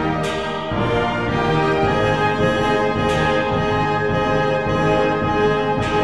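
Background orchestral music with brass playing long held notes, and a bright shimmer swelling about every three seconds.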